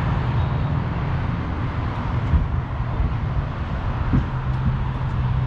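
A vehicle engine running steadily nearby, a low hum that steps slightly lower in pitch about four seconds in.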